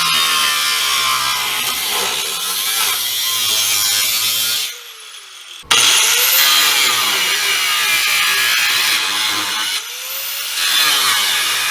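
Power saw cutting through the car's sheet-metal rear floor, stopping for about a second near the middle and then starting again abruptly.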